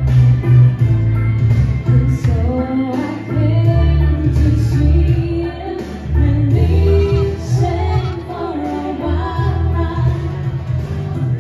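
Two women singing into microphones through a PA over musical accompaniment with strong bass.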